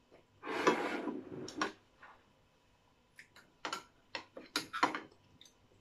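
Table and tableware noises: a short rustle about half a second in, then a run of sharp clicks and clinks from a metal fork working in a ceramic soup bowl.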